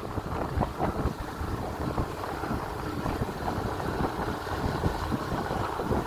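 Wind buffeting the microphone on a moving motorcycle, a low, uneven rumble with the bike's engine and road noise underneath.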